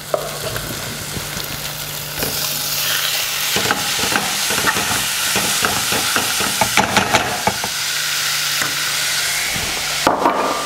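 Chicken mince and leeks sizzling as they fry in a hot pan, with a spatula scraping and stirring through the mince from time to time. The sizzle grows louder about two seconds in.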